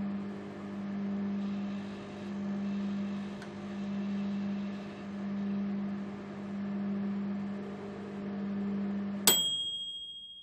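Microwave oven running with a steady hum that swells and fades about every second and a half. Near the end the hum cuts off suddenly and the end-of-cycle ding rings once and dies away.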